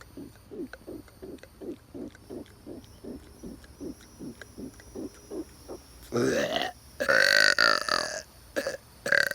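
A man's loud, long burp about six seconds in, opening with a short belch and then held for about a second. Before it comes a run of soft, short pulses, about three a second.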